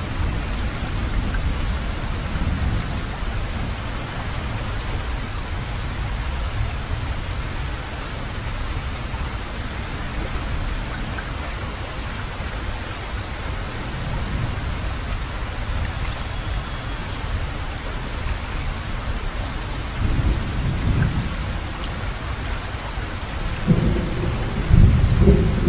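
Heavy rain falling steadily during a thunderstorm, with thunder rumbling low several times, loudest near the end.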